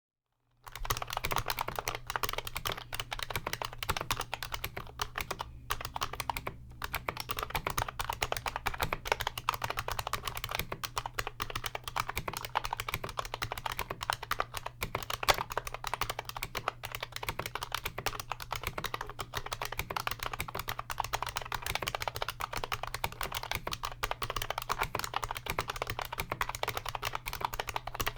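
Continuous fast typing on a 1994 IBM Model M buckling-spring keyboard, a dense run of keystrokes starting about half a second in. The springs are greased with silicone, so the chunky thock of the thick PBT keycaps comes through without the usual spring ping.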